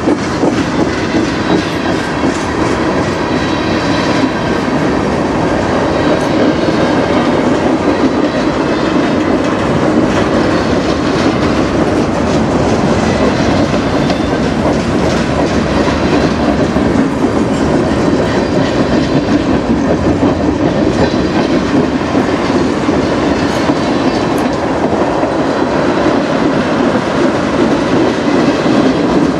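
Freight train of tank cars and covered hoppers rolling past: a steady rumble and clatter of steel wheels on the rails, with faint clicks as the wheels cross the rail joints.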